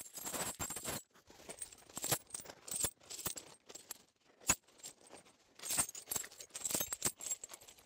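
Heavy steel H-pattern tractor tire chain clinking and jangling as it is handled and spread out on gravel, its links clanking against each other at irregular intervals, with one sharp clank about four and a half seconds in.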